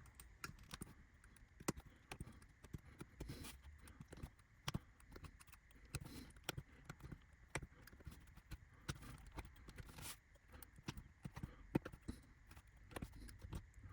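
Faint, irregular clicks and taps as small laser-cut wooden windowsill parts are cut out of their sheet and handled.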